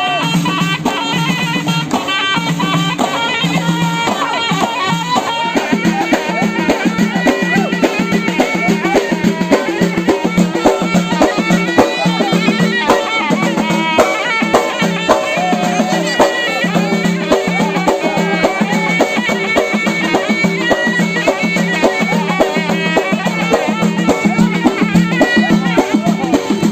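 Traditional folk-style music with a melody over a steady, driving beat.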